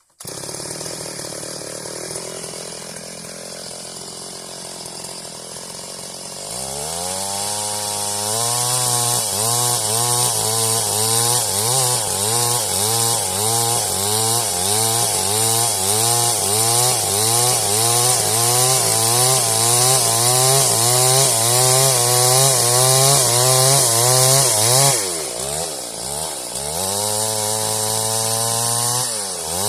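Stihl MS 382 two-stroke chainsaw cutting wood. It comes up to full revs after a few seconds, and its note rises and falls rhythmically as the chain works through the cut. Near the end it eases off briefly and then revs back up.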